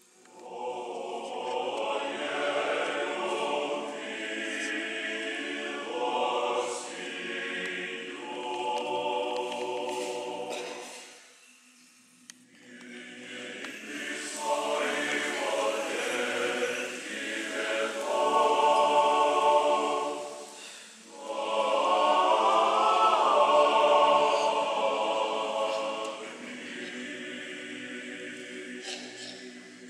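Church choir singing unaccompanied Orthodox liturgical chant in long sustained phrases, with a pause a little before halfway and a short breath about two-thirds of the way through.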